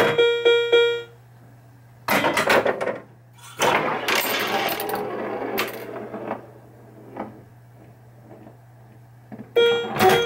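Bally Fireball Home Edition pinball machine in play: short electronic scoring tones at the start and again near the end, with bursts of mechanical clatter from the ball, flippers and bumpers in between, over a steady low hum.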